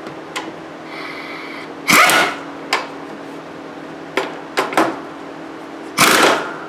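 Impact wrench tightening the nut on a riding mower's transmission drive pulley: a short whir about a second in, then two loud bursts around two and six seconds in, with a few metallic clicks between.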